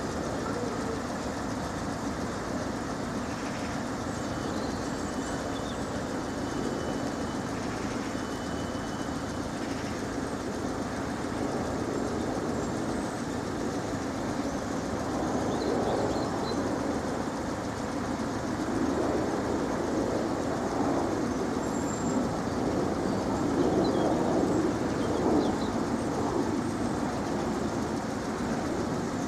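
Steady rumble and hum of a Class 455 electric multiple unit standing at the station platform, swelling louder a few times in the second half.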